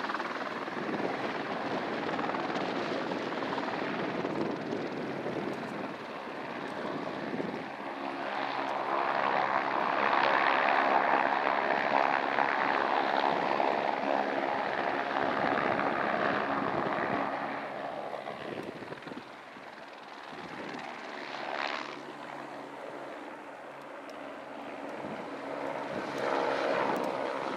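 Airbus AS350 Ecureuil helicopter flying low, its turbine engine and main rotor running steadily. It swells to its loudest in the middle, fades away after about eighteen seconds, and grows louder again near the end.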